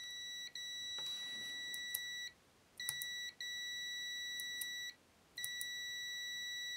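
Digital multimeter's continuity beeper sounding a steady high-pitched beep that switches on and off in three long stretches as the repaired dictaphone power switch is tested. The beep shows the switch contacts closing and conducting again.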